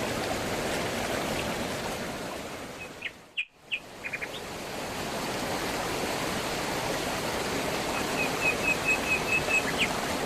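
Stream or brook flowing with a steady rush, fading almost to nothing a few seconds in and swelling back up. Small birds chirp a few times around the fade, and a quick run of repeated chirps comes near the end.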